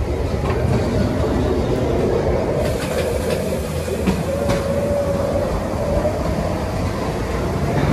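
Ghost-train ride car rolling along its metal track: a steady low rumble with a few sharp clacks and a thin whine for a couple of seconds midway.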